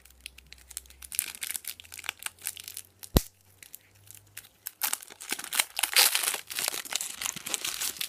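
Crinkling and tearing of plastic packaging as a trading-card deck is unwrapped by hand: an irregular crackle with a sharp click about three seconds in, growing denser and louder over the last three seconds.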